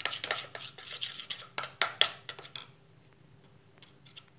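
A spoon stirring flour batter in a plastic bowl: quick, uneven scraping strokes that stop a little past halfway through.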